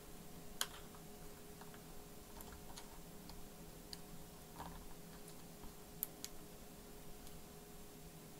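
Faint scattered clicks and taps from small laptop parts being handled while a display cable is fitted, with a sharper click about half a second in and two more around six seconds in, over a faint steady hum.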